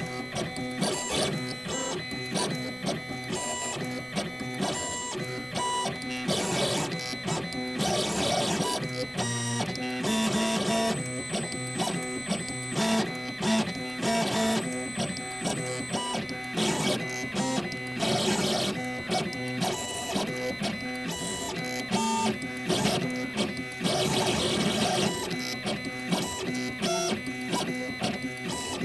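Gravograph M20 three-axis engraving machine running a diamond-drag engraving job on a curved anodized aluminum wristband. Its drive motors whir in quick, constantly changing tones as the head traces out the letters.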